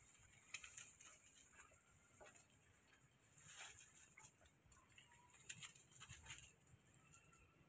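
Near silence, with faint scattered rustles and small clicks of macaques climbing through branches and vines.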